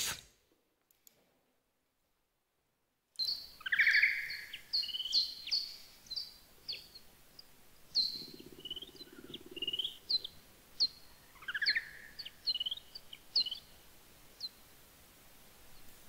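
Recording of bat calls: after about three seconds of silence, a run of rapid, irregular chirps and quick downward-sweeping squeaks, with a brief low buzz near the middle.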